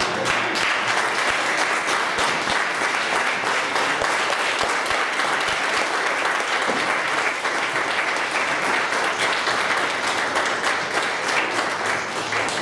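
Church congregation applauding: dense, steady clapping that starts at once and eases off near the end.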